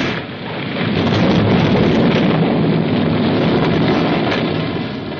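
Loud rumbling noise of a car wreck burning just after its crash and explosion, from a film soundtrack. It swells about a second in and fades near the end.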